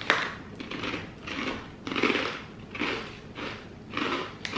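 Crunching of thick, double-layered baked garlic and Parmesan pita chips being chewed, a run of crisp crunches about every half second, with a sharp click near the end.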